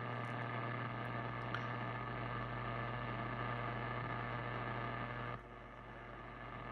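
Power-line interference heard through a 6-metre ham transceiver's speaker: a steady buzzing hiss, the radio-frequency noise of a failing, arcing power-line lightning arrester. It drops in level about five seconds in as the beam antenna swings away from the noise.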